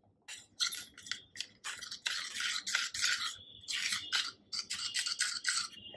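Metal spoon scraping and stirring in a small stainless steel bowl, working roasted chickpea flour and water into a paste and breaking up the lumps, in quick, irregular strokes.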